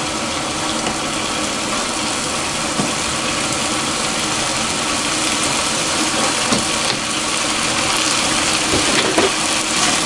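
Diced potatoes and carrots sizzling steadily as they fry, with a few light clicks of a utensil in the pan near the end.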